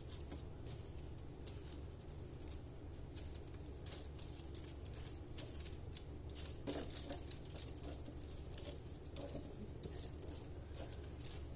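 Light scattered crinkles and soft clicks as hands coil a rolled filo-pastry börek on a foil-lined tray, over a low steady hum.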